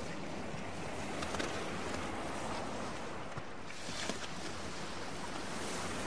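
Storm surf: heavy waves breaking and washing in a steady rush, with a few sharper crashes about a second in and again past the middle.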